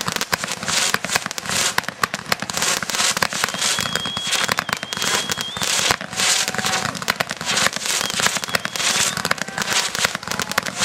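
Fireworks display: a dense, continuous crackle of rapid small bangs and pops from crackling effects. A thin high whistle is held for about two seconds in the middle, and a lower whistle follows briefly.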